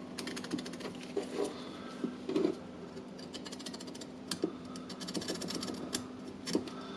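A drill motor's carbon brush being rubbed on sandpaper in quick rasping strokes, with a few light knocks, to free a brush that sticks in its holder.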